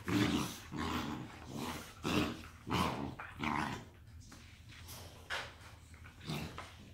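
Cane Corso puppies play-fighting, growling in a quick run of short bursts, then quieter with two brief growls near the end.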